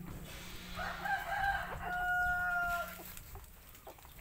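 A rooster crowing once, from about a second in, ending in a long held note that stops near three seconds.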